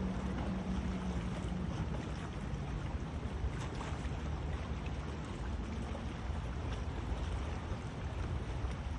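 Wind blowing across the microphone: a steady rushing noise with a low rumble, under a faint steady hum that fades out about two seconds in.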